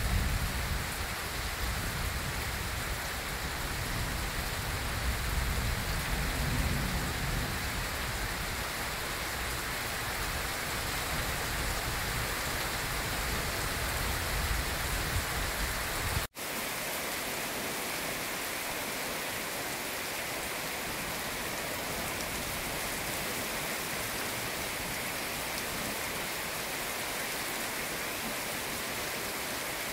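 Steady heavy rain falling, with a low rumble beneath it for the first half. The sound drops out for an instant just past halfway, then continues as steady rain alone without the rumble.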